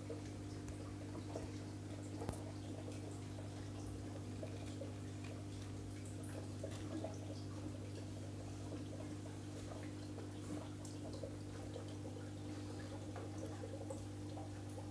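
Aquarium equipment humming steadily, with faint water trickling and dripping sounds over it.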